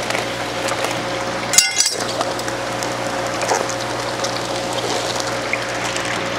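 Water sloshing and pouring as plastic fish-shipping bags are opened and emptied into a tub, over a steady hum. About a second and a half in, a sharp crackle of plastic is the loudest moment.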